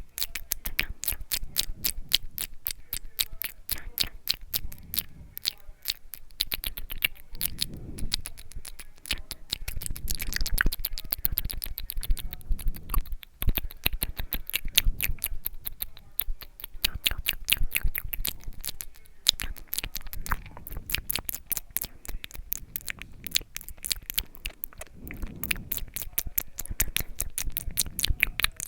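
ASMR mouth sounds: rapid, wet clicks and smacks of tongue and lips, many a second, going on without a break.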